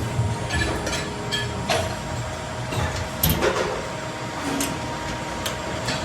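Factory machinery running with a steady hum and scattered sharp clicks and knocks.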